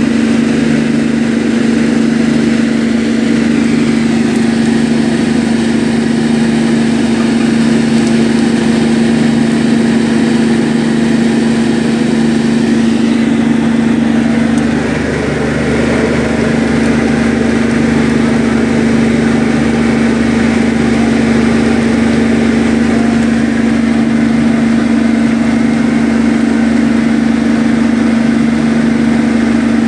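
Fishing boat's engine running steadily at a constant speed, a loud, unbroken hum.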